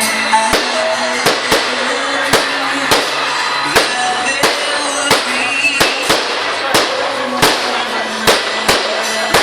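Fireworks going off in an irregular string of sharp bangs, roughly one to two a second, over loud music.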